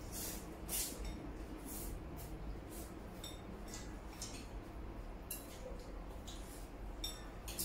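Eating at the table: ramen noodles slurped and chopsticks clinking against ceramic bowls, in short irregular sounds every half second or so, a few of the clinks ringing briefly.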